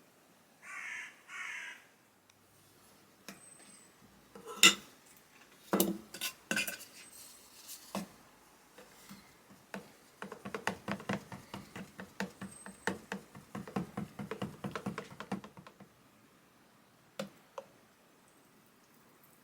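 Two short hissy bursts, then hard small objects knocking and clinking as they are handled, followed by a run of rapid light clicks lasting about five seconds.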